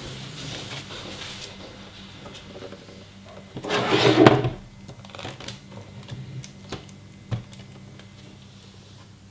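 Handling noise from a flat-panel LED monitor being laid down on a table: a brief scraping thump about four seconds in, then a few light taps and a sharp click as hands settle the panel. A faint steady low hum lies underneath.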